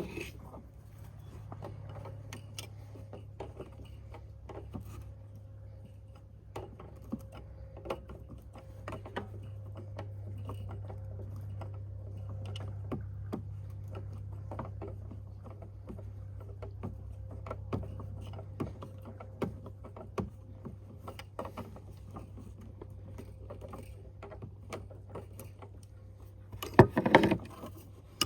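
Scattered small clicks, taps and rattles of hand tools and fasteners as parts are taken off an ATV, over a steady low hum, with a louder clatter about a second before the end.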